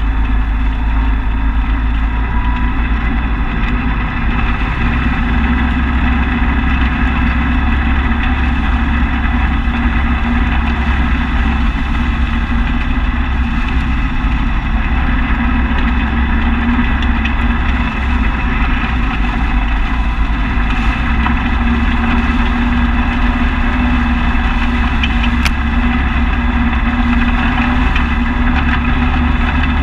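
Engine of a small ride-on off-road vehicle running steadily at an even speed as it drives along grassy field tracks, picked up by a camera mounted on the vehicle.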